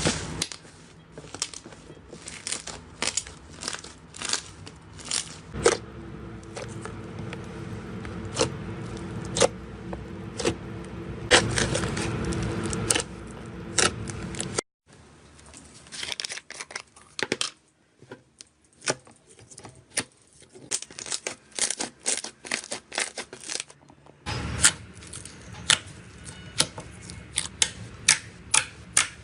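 Slime being squeezed and poked by hand, giving a fast, uneven run of sharp sticky pops and clicks. The sound breaks off abruptly twice and starts again.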